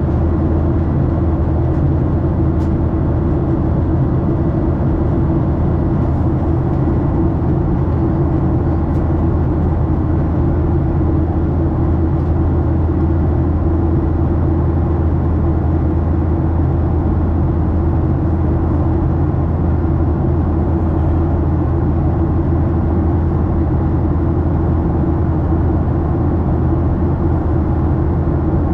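Steady cabin noise inside a Boeing 737-800: a constant low drone of the engines and rushing air, with a faint steady high tone in the first half.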